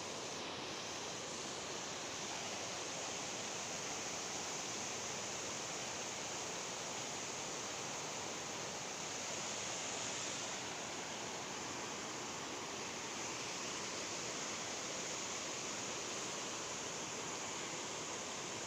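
Water pouring over a low weir and churning into white water below: a steady rushing noise.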